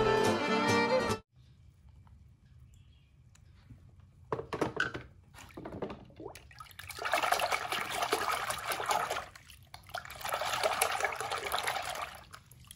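A second of film music that cuts off, then a hand swishing and splashing water in a plastic tub, in irregular bursts with two longer stretches of sloshing near the middle and near the end.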